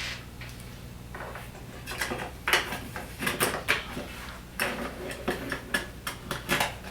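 Plastic and metal parts at the end of a vertical blind headrail clicking and knocking as they are pulled apart and handled: irregular sharp clicks, thicker from about two seconds in.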